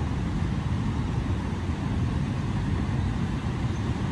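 Turbulent floodwater rushing out of a dam outlet down a concrete channel: a steady, loud rushing noise, heaviest in the low range.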